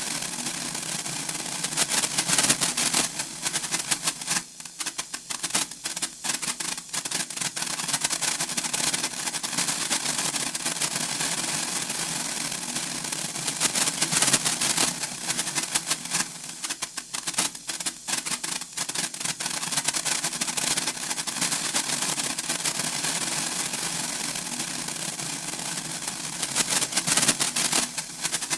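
Senko hanabi (Japanese hand-held sparkler) crackling: a rapid, dense spatter of tiny pops that swells to its thickest about two seconds in, around the middle and near the end, and thins to sparser crackles in between.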